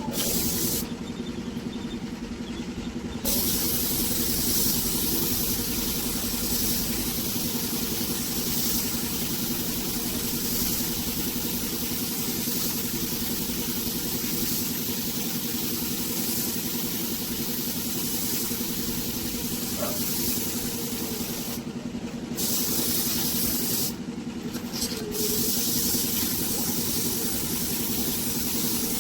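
Compressed-air paint spray gun hissing steadily over a steady motor hum. The spray stops briefly three times where the trigger is let go, then starts again.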